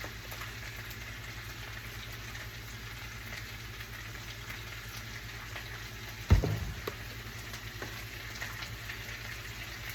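Diced potatoes, onions and peppers frying in a pan with a steady sizzle over a low hum. A single loud thump comes about six seconds in.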